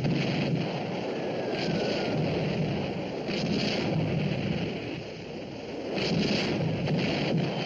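Steady rush of wind and choppy sea, with the low rumble of a destroyer's engines as it bears down head-on; hissing wave splashes come and go every second or two.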